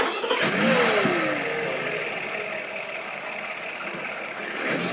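BMW M5's 4.4-litre twin-turbo V8 flaring up sharply, its revs falling away over the first second and settling to a steady idle.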